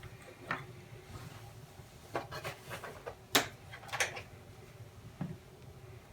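Small parts being handled on a work table during model rocket assembly: a few scattered light clicks and knocks, the sharpest about halfway through, over a low steady room hum.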